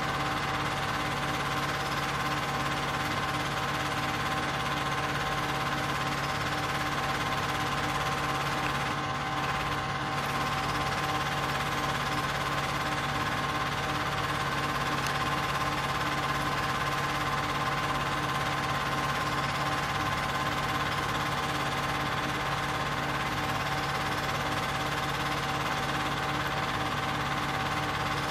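Cine film projector running: a steady mechanical whirr with a constant hum, unchanging throughout.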